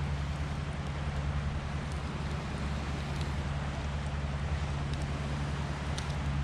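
Campfire burning with a few faint, sharp crackles over a steady low hum and rushing noise.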